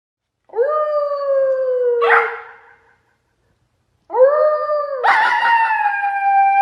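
A dog howling: two long howls. The first lasts about two seconds and slowly falls in pitch. The second starts about four seconds in, jumps up in pitch and wavers near the end.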